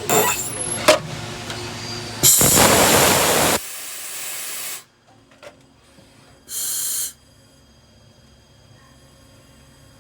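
Hissing bursts of compressed air at a CNC machine: a loud one about two seconds in lasting about a second, trailing off more quietly, then a shorter, thinner one a few seconds later. Before the first burst the machine's running hum dies away.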